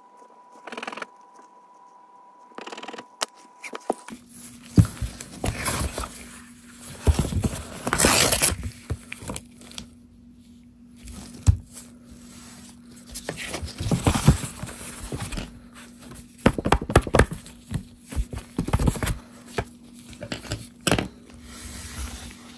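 Scratch-off lottery tickets scratched with tweezers and handled on a wooden table: irregular bursts of scraping and paper rustling, busier from about four seconds in.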